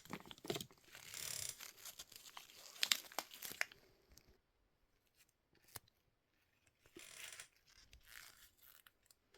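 Crinkly packet being torn open and rustled for about four seconds, with a few sharp clicks. After that it goes mostly quiet, with a few light ticks and a brief rustle.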